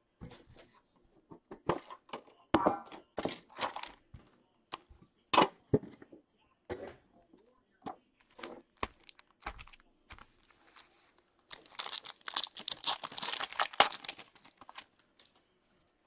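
Hockey card packs and their cardboard tin sleeve being handled: scattered rustles, taps and clicks, then near the end a few seconds of dense crinkling and tearing as a foil card pack is ripped open.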